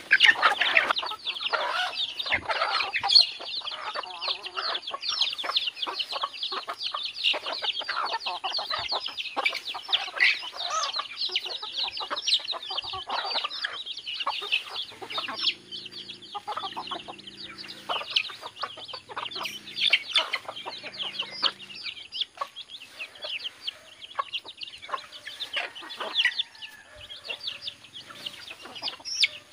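A flock of native chickens clucking and chirping while feeding on corn, a dense, continuous run of quick, high calls.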